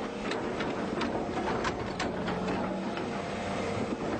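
Excavator engine running steadily while its bucket digs, with irregular sharp clanks and scrapes.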